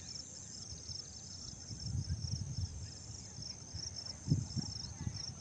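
Insects trilling steadily in a high, fast-pulsing chorus, with low rumbling thumps about two seconds and four seconds in.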